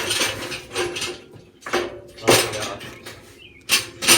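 Steel plate clanking and scraping against the metal frame of a hydraulic lawnmower lift as it is set in place on top: several sharp metallic knocks, each ringing briefly, the loudest about two seconds in and again near the end.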